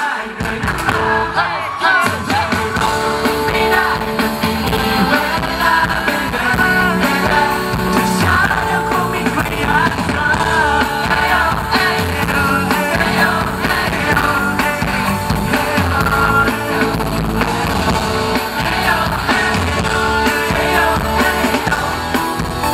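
Male singer singing live into a microphone over a pop-rock band with drums, heard through the concert sound system from the audience. Bass and drums come in right at the start.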